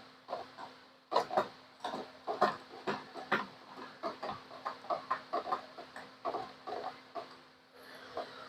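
Irregular light clicks and metal taps, about two or three a second, as a clamp is worked and set against a steel gate rail, over a faint steady hum.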